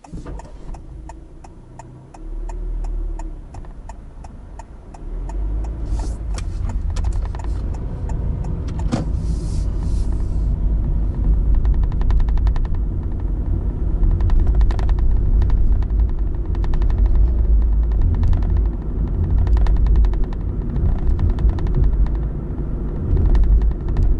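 A car pulling away from a stop and driving on, heard from inside: low engine and tyre rumble that builds over the first few seconds and then runs on steadily. A run of regular ticks sounds over the first ten seconds or so.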